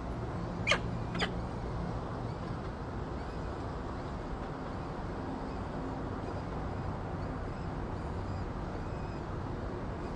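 Two short, sharp peregrine falcon calls about half a second apart, followed by faint high peeps, over the steady hum and hiss of the nest-box microphone.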